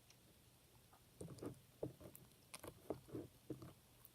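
Faint, soft wet squelches of clear slime being mixed, a scattered handful of small squishing sounds while the slime is still partly liquid and only starting to form.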